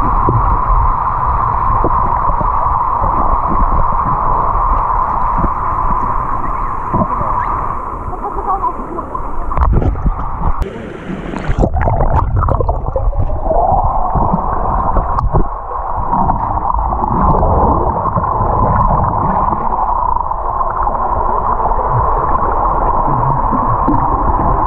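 Pool water heard from underwater: a steady droning hum over a low rumble, with bubbling and water movement. A little before halfway the hum drops out for a few seconds, with a short burst of bubbles and water noise, then comes back.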